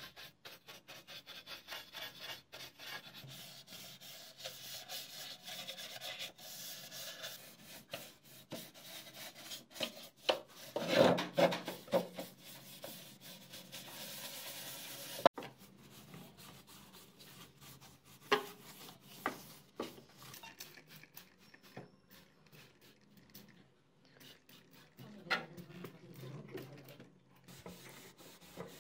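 Stiff-bristled paintbrush scrubbing back and forth over a plastic juicer housing in quick, repeated strokes, with a louder stretch of rubbing about eleven seconds in and a single sharp click a few seconds later. Near the end a cloth rubs over the housing.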